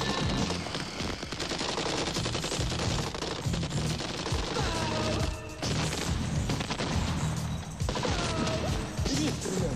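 Heavy automatic gunfire from Kalashnikov-type assault rifles and machine guns, with rapid shots overlapping in a continuous fusillade. It slackens briefly about halfway through.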